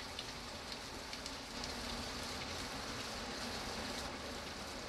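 Steady rain falling on a surface, an even hiss of rain with scattered individual drops ticking through it.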